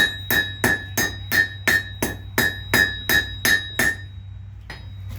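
Blacksmith's hand hammer striking hot iron on an anvil, steady blows about three a second, each with a bright ring. The hammering stops about four seconds in, followed by one lighter tap.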